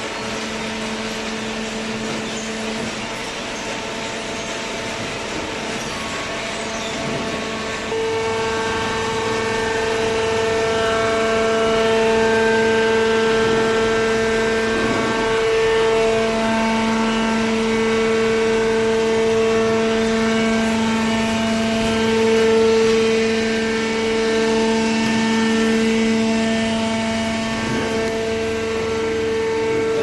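Hydraulic cardboard baler running: a steady hum and whine from its motor and hydraulic pump, stepping up louder about eight seconds in.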